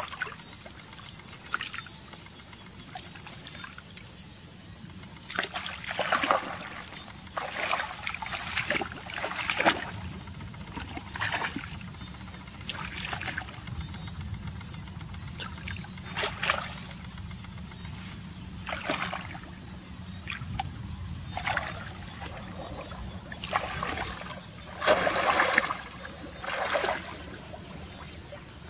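Water splashing and trickling in short irregular bursts, one to three seconds apart, over a faint steady low hum.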